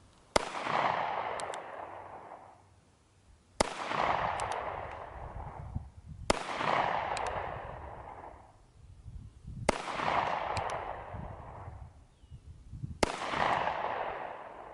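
Five single shots from a North American Arms Ranger II .22 Magnum mini revolver, spaced about three seconds apart, each followed by about two seconds of echo off the surrounding hills, with a faint double click between shots. All five rounds fire without the cylinder hanging up, which the shooter takes as a sign that the factory repair fixed the gun.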